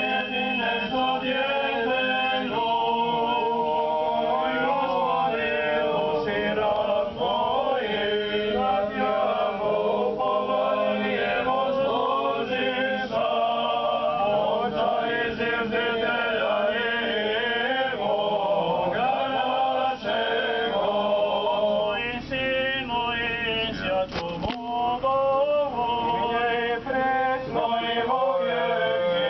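Serbian Orthodox clergy chanting a liturgical hymn in unison and harmony, several male voices unaccompanied, without a break.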